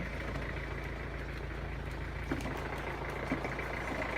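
Vehicle engine idling steadily, with a few faint knocks over it.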